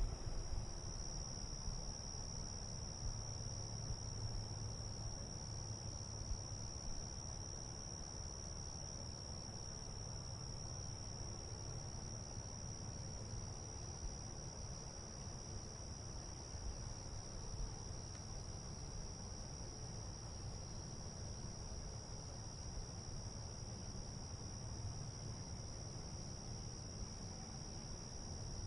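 Insects, crickets or cicadas, chirring in a continuous high-pitched drone that holds one steady pitch throughout, over a low, even rumble of distant background noise.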